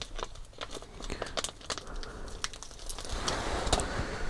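A small clear plastic parts bag crinkling as it is handled, with scattered light clicks and crackles.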